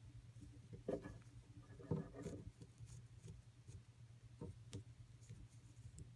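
Faint handling sounds of crochet work: a hook and cotton yarn being worked, with a few soft rustles and taps, over a steady low hum.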